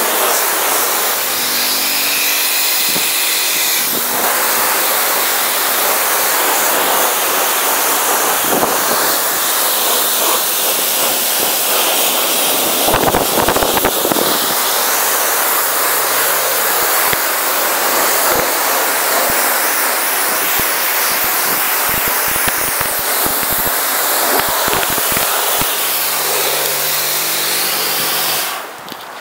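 High-pressure washer lance at a self-service car wash blasting water onto a car's body, a loud steady hiss of spray splattering off the paintwork. It cuts off sharply near the end as the trigger is released.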